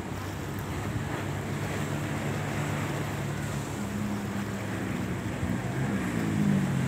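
Low steady drone of ship engines from a container ship and its pilot boat passing close offshore, over wind on the microphone and waves washing on rocks. Near the end the drone grows a little louder and wavers in pitch.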